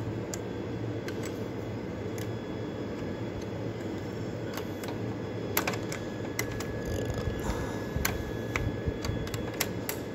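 Scattered light metallic clicks and taps of a wrench working the nut on a car battery terminal clamp, coming more often in the second half, over a steady low background rumble.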